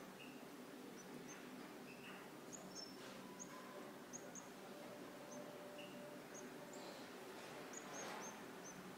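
Short, high-pitched peeps, one or two a second, from European goldfinch nestlings begging as the adult feeds them, over a steady low hum.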